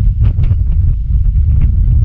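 Strong wind buffeting the microphone as a loud, steady low rumble, with waves washing and splashing among concrete tetrapods.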